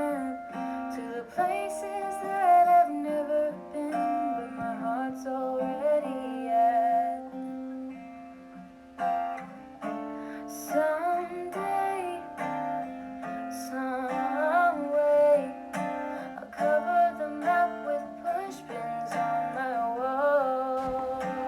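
Background song on acoustic guitar, strummed chords under a gliding melody line.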